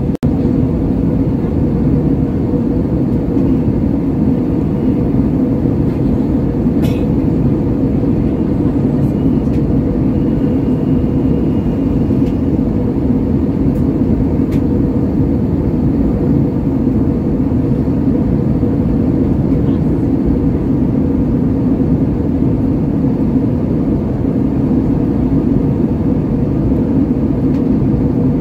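Steady cabin noise of a jet airliner in flight, heard inside the cabin by a window over the wing: a deep, even rumble of engines and airflow with a steady hum on top. A few faint clicks come through here and there.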